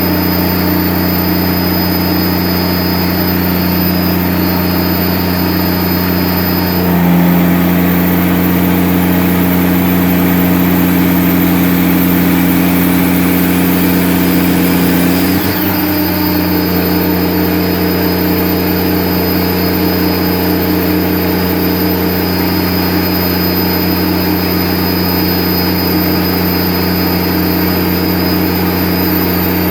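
Cummins QSL9 diesel engine of a generator set running steadily at full rated speed under light load, with an odd rough noise from the front of the engine whose cause the owner cannot find. Its tone shifts about a quarter of the way in and again about halfway through.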